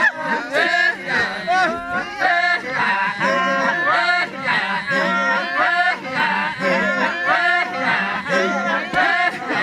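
Group of Maasai men singing the chant of the adumu jumping dance. A low steady drone is held under higher voices calling in quick, repeated rising and falling phrases.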